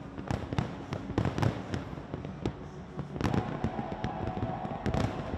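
A fireworks display: aerial shells bursting in rapid, irregular bangs over continuous crackling. A steady high tone joins in about three seconds in.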